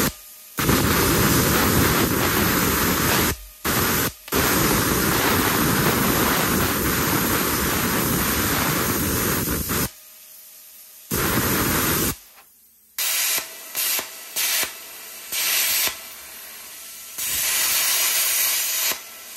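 A plasma cutter burning out rivets in a steel truck frame. It gives a loud, steady hiss that runs for most of the first ten seconds with two brief breaks, then comes and goes in shorter bursts of a second or two as the trigger is released and pulled again.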